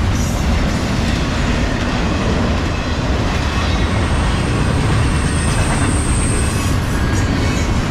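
Intermodal freight train's double-stack container cars and trailer cars rolling past, with a steady rumble and clatter of wheels on the rails. A thin high-pitched squeal sounds for a couple of seconds around the middle.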